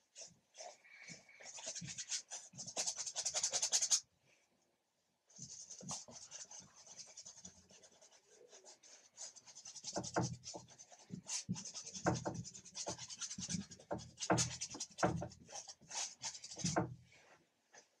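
Paintbrush scrubbing acrylic paint onto a stretched canvas in quick rasping strokes. The strokes stop briefly about four seconds in, then grow heavier from about ten seconds in, with dull knocks from the canvas under the brush.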